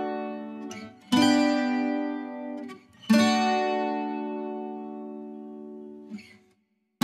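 Background music: an acoustic guitar strums a chord about a second in and another about two seconds later, each left to ring and slowly fade. A short silence falls just before a new chord at the very end.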